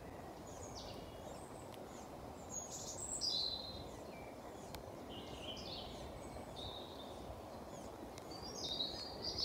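Outdoor ambience of birds giving short, high chirps and calls every second or so over a faint, steady low background noise.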